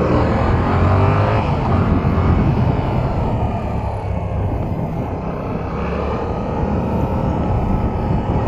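Yamaha R7's 689 cc parallel-twin engine pulling under acceleration while riding, its pitch rising through the first second and a half. It then runs on steadily under a broad rush of noise.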